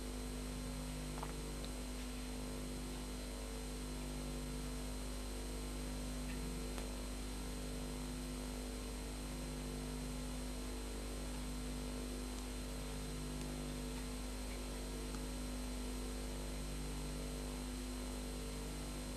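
Steady electrical hum over an even hiss: the background noise of the recording. A lower buzzing tone comes and goes every second or two.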